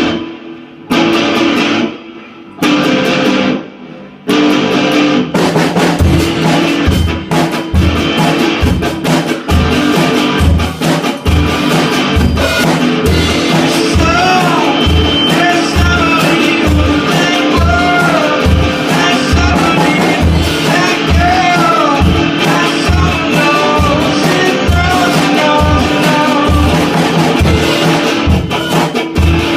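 Rock band song with distorted guitar and drum kit. It opens with a few separate guitar chord hits, then the drums come in with a steady beat, and a singing voice enters about halfway through.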